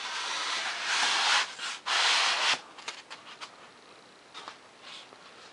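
Foam board pieces rubbing and scraping against each other as they are slid together, in two long strokes within the first two and a half seconds, followed by faint handling taps.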